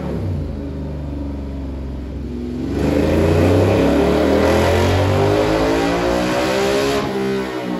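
Ducati Monster 1200S's 1198 cc Testastretta L-twin on a roller dyno, breathing through an SC Project de-cat and silencer. About three seconds in the throttle opens and the revs climb steadily for about four seconds under load, then the throttle shuts near the end and the revs fall away.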